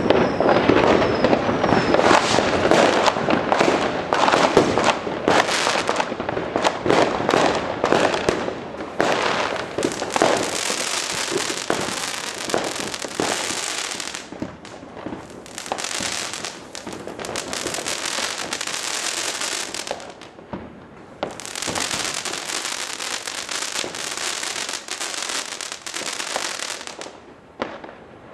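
Fireworks going off: about ten seconds of dense crackling and banging, then three long stretches of steady high hissing, each several seconds long.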